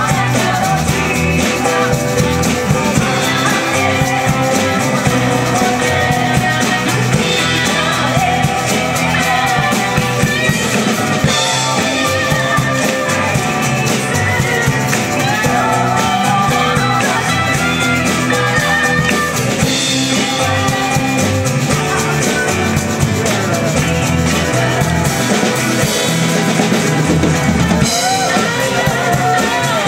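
Live band playing a folk-rock song, with drum kit, guitars, bass and keyboard under women singing together into microphones.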